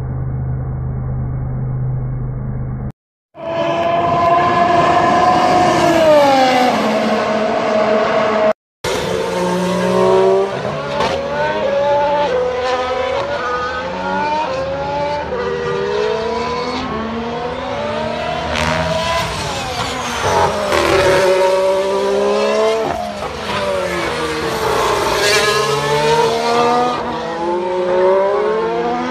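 Formula One cars' 1.6-litre turbocharged V6 hybrid engines passing at speed, the note falling as they brake for corners and climbing in steps through the upshifts as they accelerate away, one car after another. The sound drops out briefly twice where the clips are cut.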